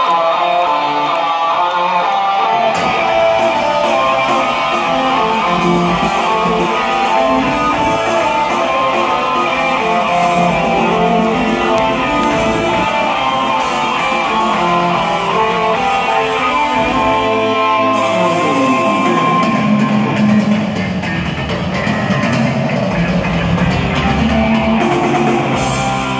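Live rock music played loud through an arena sound system and heard from the stands: electric guitar over bass and drums. The bass and drums come in about three seconds in, and a falling pitch glide sounds a little past the middle.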